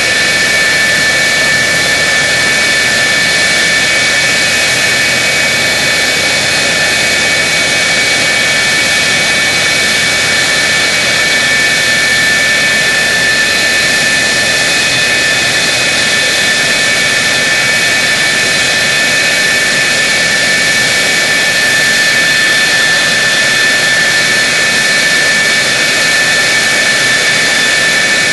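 F-104 Starfighter's J79 turbojet running steadily at idle, a loud even rush with a constant high whine over it.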